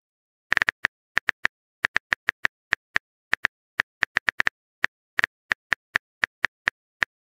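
Smartphone keyboard key-tap clicks, one for each letter typed into a chat message box, coming short and sharp at an uneven typing pace of about four a second.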